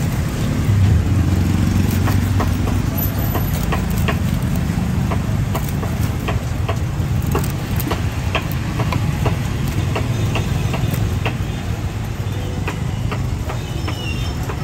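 A cleaver slicing through grilled pork and knocking on a wooden chopping block, sharp knocks roughly twice a second, over a steady low rumble.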